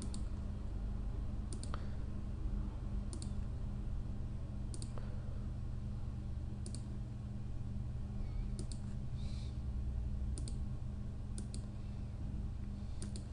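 Computer mouse clicking about a dozen times, a second or two apart and sometimes in quick pairs, as the points of a Bezier mask are placed one by one. A steady low hum runs underneath.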